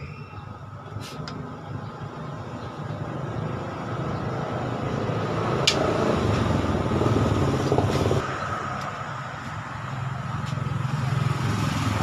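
A motor vehicle's engine goes by, a low rumble growing louder to a peak about halfway through, easing off, then building again near the end. A few sharp clicks sound over it.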